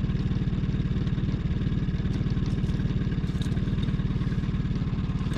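A boat's outboard motor running steadily, with a rapid, even engine pulse.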